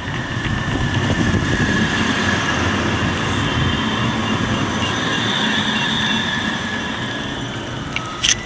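CAF Urbos 3 light-rail tram passing close by, a steady high whine over the rumble of its wheels on the rails. A sharp click near the end.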